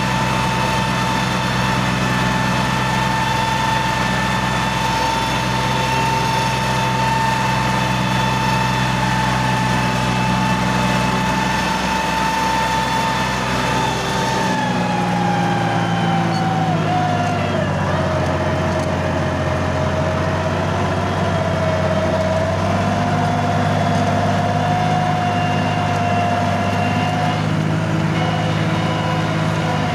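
Four-wheel farm tractor engines running steadily while towing a broken-down tractor through a muddy paddy, with a steady high whine over the engine note. About halfway the pitch drops and then holds at the lower note.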